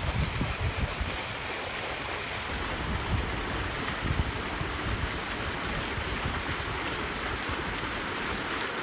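Steady rushing of choppy pool water, with wind buffeting the microphone in irregular low rumbles.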